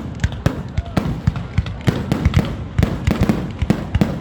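Fireworks display: shells bursting in rapid succession, a dense barrage of sharp bangs and low booms at about five a second with no pause.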